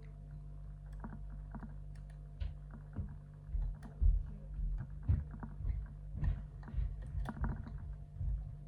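Pin tumbler lock being picked: small irregular clicks and scrapes of the pick and tension wrench working the pins of an Iseo slam lock cylinder, with dull handling knocks from about two and a half seconds in, over a steady low hum.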